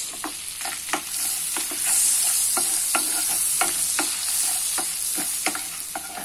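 Whole spices (dry red chillies, cinnamon and cardamom) sizzling in hot oil and butter in a non-stick kadai. The steady hiss grows louder about two seconds in. A wooden spatula stirring them makes many short clicks and scrapes against the pan.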